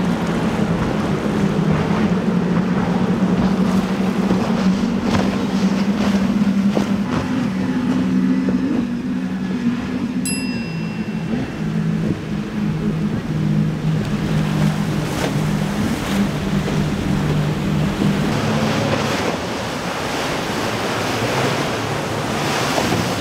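Outboard-powered boats running at speed through rough water: a steady low engine drone under the hiss of wind, spray and churning waves, shifting in pitch as the boats change.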